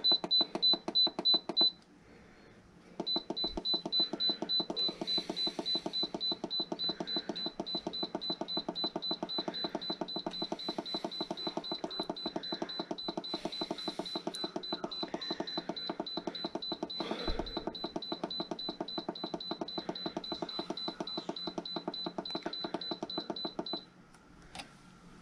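Instant Pot electric pressure cooker's control panel beeping in a rapid, steady string as a button is held down to count the cooking time down to 5 minutes. There is a brief break about two seconds in, and the beeping stops shortly before the end.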